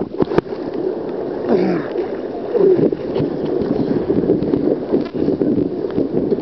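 Sea water sloshing and splashing around a camera carried at water level while wading through shallow surf, with a couple of sharp knocks right at the start as the camera dips into the water.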